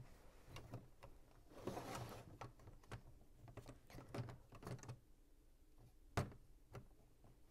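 Lego plastic pieces being handled and pressed together: faint, scattered small clicks and taps, with a short rustle about two seconds in and a sharper click about six seconds in.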